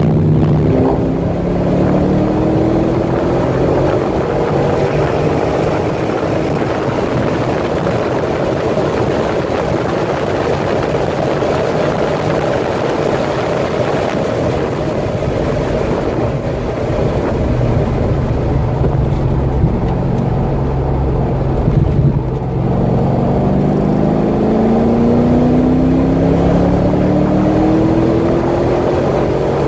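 Corvette C6 Z06's 7.0-litre LS7 V8 at speed on a road course, running loud with no clear pitch for a long stretch. It then pulls hard with the engine note rising, broken once by a gear change about two-thirds of the way through, and climbs again.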